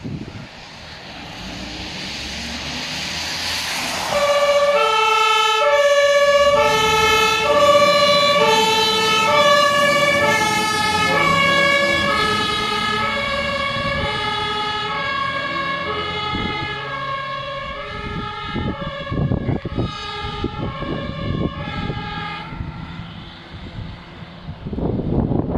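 Fire trucks' two-tone sirens alternating between a high and a low note about once a second, starting about four seconds in after a vehicle engine rises as it pulls out. A second two-tone siren overlaps from about ten seconds in, and the sirens fade away near the end.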